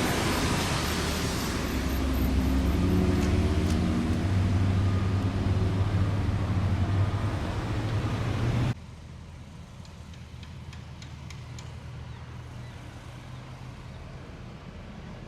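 A large vehicle running close by, a steady low hum under loud rushing noise. About nine seconds in it cuts off abruptly, leaving quieter traffic background with a few light clicks.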